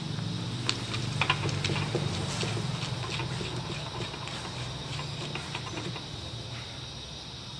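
Small irregular clicks and knocks of wooden parts being handled and fitted together, as a wooden phone cradle is worked onto the end of a jointed wooden arm, busiest in the first couple of seconds and thinning out near the end. Crickets chirp steadily and a low hum runs underneath.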